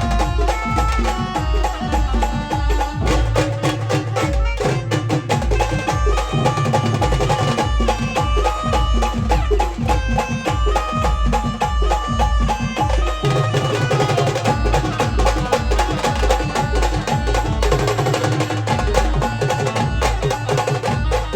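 Band music playing a folk tune: steady held melody notes over a heavy, regular drum beat.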